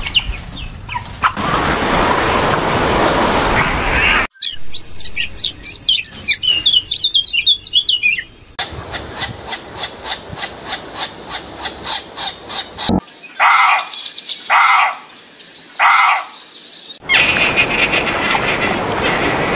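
Several short animal sound clips spliced one after another with sudden cuts. First a noisy stretch, then bird chirps with quick gliding notes, then a fast even run of high calls about four a second, then three separate calls, then noise again.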